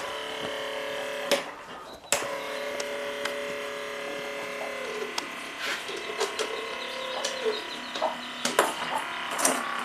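Small electric motor of a homemade plastic-bottle blender whining steadily. It cuts out about a second in and starts again with a click about two seconds in, dipping in pitch a few times later, with clicks and knocks as the bottle jar is handled on its base.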